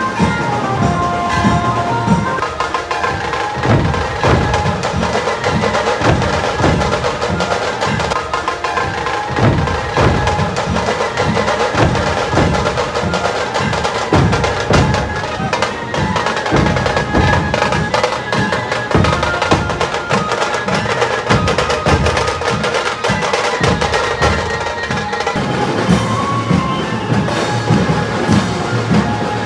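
Dhol drums of a street drumming troupe played together in a fast, steady rhythm.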